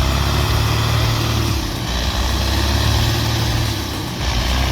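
Heavy logging truck's diesel engine running steadily with a deep, low rumble while the loaded truck works to stay upright.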